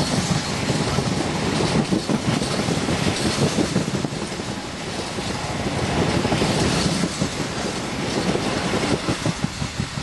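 Long freight train of empty steel-carrying bogie wagons rolling past close by, the wheels clattering over the rail joints. The clacks come through more distinctly near the end.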